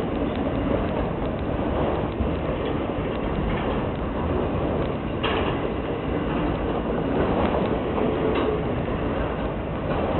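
Freight train of autorack cars rolling past: steady rumble and rattle of steel wheels on the rails, with a couple of short, sharper metallic noises about five and eight seconds in.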